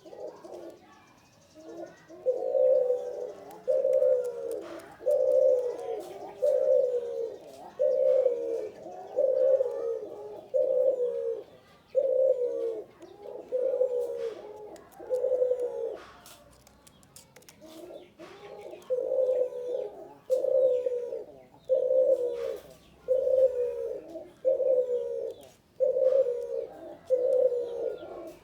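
Male spotted dove (tekukur) cooing over and over, calling vigorously: a steady run of low coos about one every second and a half, a short break about halfway through, then the cooing resumes.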